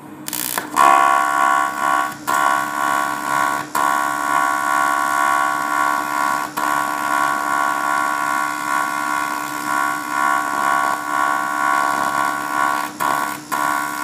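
Grovers inverter TIG (argon-arc) welder's arc burning: a loud, steady high buzz with a hiss, struck about a second in. It is broken by a few brief crackles and dips as the torch is held over the work.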